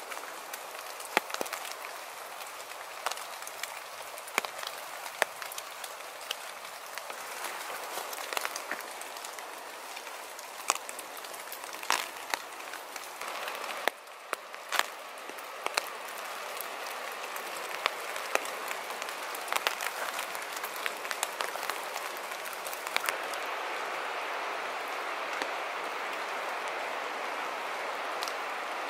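Steady rush of a river below a wooded slope, louder in the second half, with many scattered, irregular sharp ticks of water drops falling on wet leaf litter.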